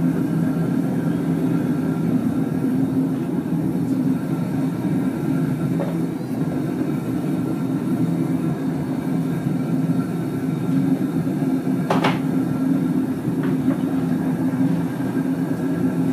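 Homemade gas-cylinder foundry furnace running, its burner giving a steady, loud roar with an even hum underneath. A single sharp clink about twelve seconds in.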